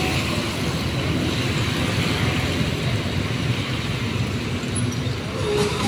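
Steady street din of a parade crowd and vehicle engines, with no music playing because the parade sound system is switched off.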